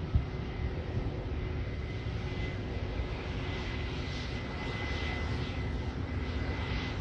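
Airliner engines running, a steady low rumble with a thin high whine that comes in about two seconds in and fades near the end.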